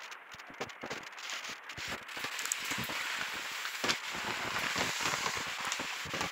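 Rain pattering on a hail-damaged roof and leaking through onto plastic sheeting: a dense crackling patter of drops that thickens into a steady hiss from about two seconds in. The roof is cracked and holed by hail, so the rain comes inside.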